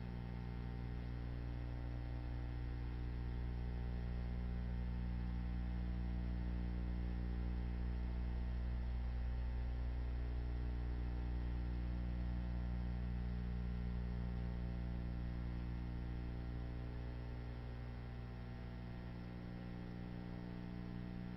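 Steady low electrical mains hum with a buzzy stack of overtones, swelling slightly in the middle and falling back near the end; no other sound.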